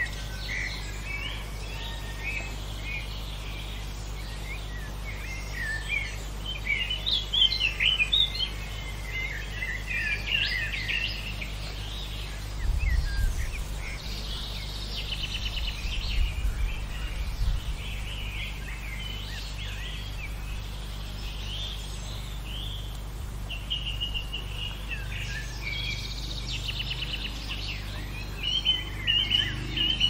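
Several songbirds singing at once in a lively mix of short chirps and whistled phrases, with rapid trills around the middle and near the end. Under them runs a steady low background rumble that swells briefly about halfway through.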